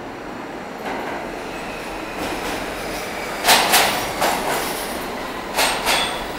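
R46 subway train coming in alongside the platform: a rumble that grows as it approaches. From about three and a half seconds in come loud, sharp clacks in close pairs as its wheels run over the rail joints.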